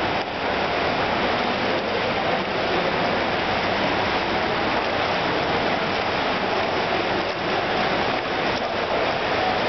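Steady rushing, water-like noise of an indoor swimming pool hall, with no distinct splashes or other events.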